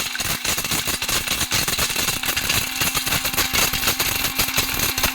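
Hotstarr Bullet mixer grinder running at full speed, grinding dry grain to flour in its jar: a steady motor whine with the dense rattle of grain against the blades and jar.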